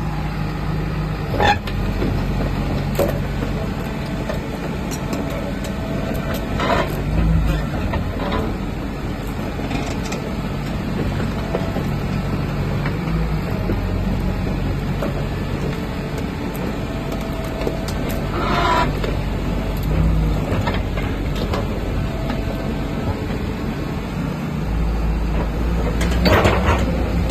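Diesel engine of a Caterpillar 315D tracked excavator running steadily, with about four brief louder noises over it.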